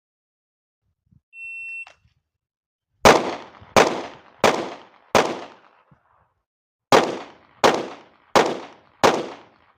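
A shot timer's start beep, then eight pistol shots from an Arex pistol: four evenly spaced, a pause of under two seconds, then four more at the same pace, each with a short ringing echo. The split fits the 25-yard stage of the FBI qualification, four rounds standing, then a drop to kneeling for four more.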